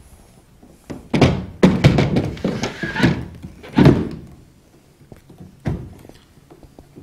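Tumble dryer's condenser unit being pushed back into its plastic housing: a run of thunks and scraping over a few seconds, the loudest about four seconds in, then one more sharp knock near the end.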